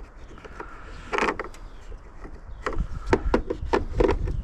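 A tool box being forced shut: a scraping rattle about a second in, then a quick run of clicks and knocks as the lid is worked closed.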